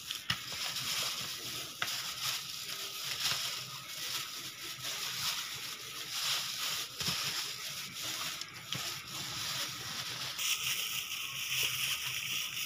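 A hand in a plastic bag kneading and squeezing raw chicken pieces in marinade in a plastic basin, giving an irregular, continuous wet squelching and crinkling.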